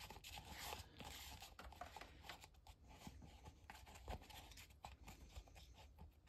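Faint rustling and light crinkling of a damp paper coffee filter being pressed by fingers against the inside of a plastic plant pot, with small scattered clicks from handling the pot.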